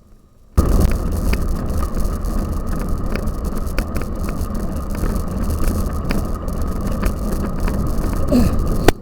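Cyclocross bike being ridden over rough ground, with heavy wind rumble on a bike- or rider-mounted camera and a constant light rattle of the bike, starting suddenly about half a second in; one sharp click near the end.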